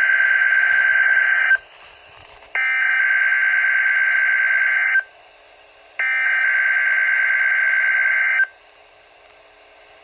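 NOAA Weather Radio SAME header tones, the harsh screeching digital data bursts of the EAS header, played through a Midland WR120EZ weather radio's speaker. Three bursts of about two and a half seconds each, separated by about a second of quiet; the first is already under way and ends about a second and a half in. They encode a Required Weekly Test alert.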